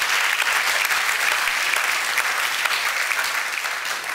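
Audience applauding: many people clapping at once, steady, then beginning to die down near the end.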